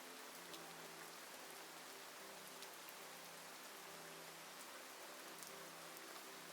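Heavy rain falling steadily as an even hiss, with single drops ticking sharply here and there. Faint soft music notes sit beneath it.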